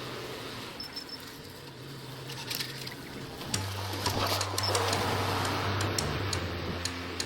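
Background music: low bass notes held and stepping in pitch under light ticking percussion, with a couple of swelling whooshes.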